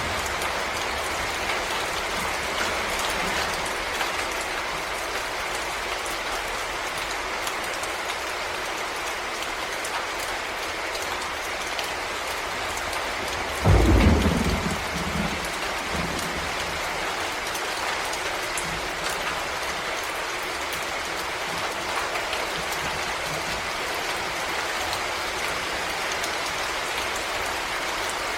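Steady rain falling in a forest. About halfway through comes one sudden, loud, low rumble of thunder that dies away over a couple of seconds.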